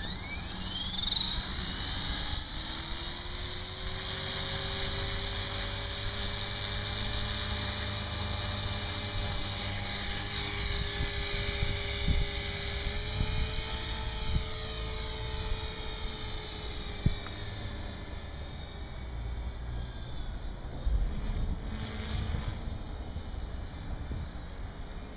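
Align T-Rex 450 Pro electric RC helicopter's motor and rotor whine, rising in pitch as the head spools up, then a steady high whine with a lower rotor hum as it lifts off and hovers. The sound fades from about seventeen seconds in as the helicopter climbs away.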